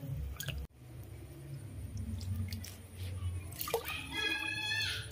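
Water splashing and dripping in a plastic basin as baby monkeys move about in it, with scattered small clicks. About four seconds in, a high-pitched call lasting under a second.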